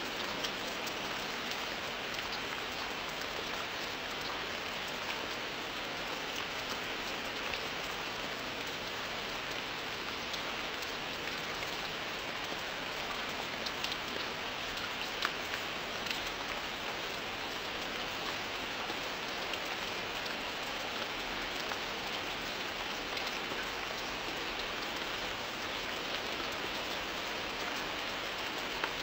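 Steady rain falling: an even hiss of rain on a surface, with scattered sharper drop ticks.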